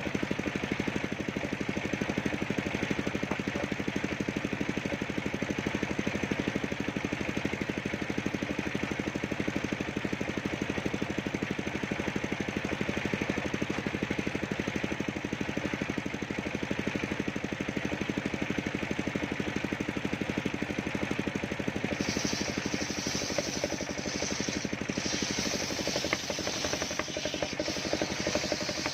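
Engine of a homemade circular-saw rig running steadily. Late on, a higher hiss joins the engine and holds to the end.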